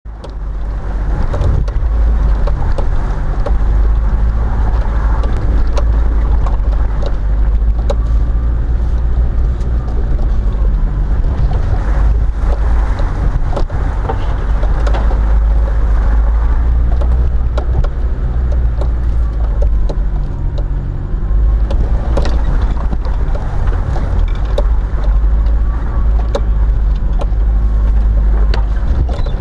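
Vehicle driving over a rough, rutted dirt track, heard from inside the cabin: a steady low engine and road rumble with frequent knocks and rattles as it bumps over the ground.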